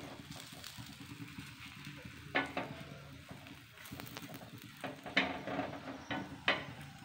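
Aloo paratha sizzling faintly in oil on a tawa over a low flame, with a steel spoon pressing and scraping on it a few times, the loudest scrape about two and a half seconds in.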